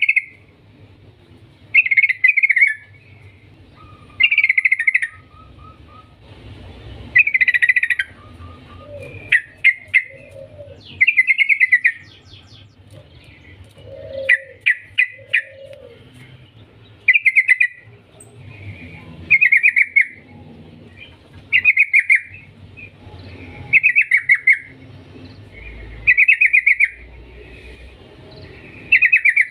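Yellow-vented bulbul (trucukan) calling in short, loud rattling bursts of rapid chattering notes, repeated about every two seconds.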